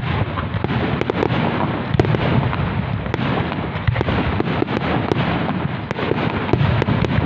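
Fireworks display in a dense barrage: many sharp bangs and crackles following one another closely over a continuous deep rumble.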